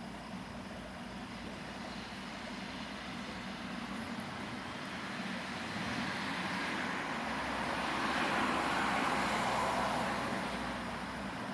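Road traffic noise: a steady background rush with a low hum, swelling as a vehicle passes about two-thirds of the way through and then easing off.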